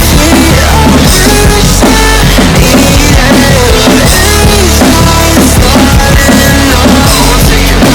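Drum kit played along to a rock song's recording in an instrumental stretch, with a melody line that slides up and down over the beat.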